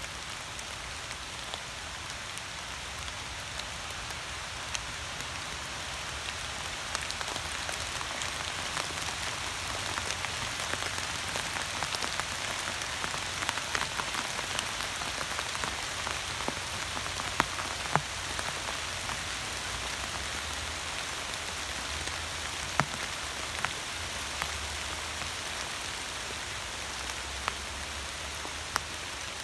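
Steady rain falling, with scattered single drops landing with sharp taps; the rain runs a little heavier through the middle.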